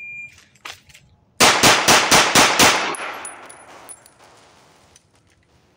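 A shot timer's short start beep, then about a second later a Walther PPQ 5-inch 9mm pistol fires six rapid shots in just over a second, a Bill Drill, with the reports echoing and dying away.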